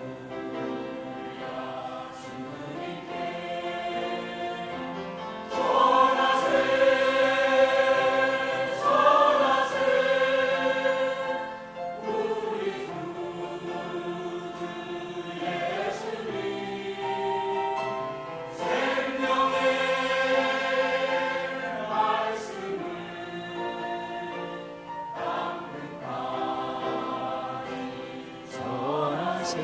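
Group singing a hymn of praise, several voices holding long sustained notes; it swells louder twice, about a fifth of the way in and again past the middle.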